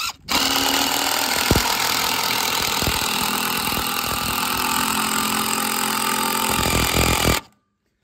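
Craftsman cordless impact driver hammering a long screw into a cedar log, running continuously for about seven seconds and then stopping suddenly.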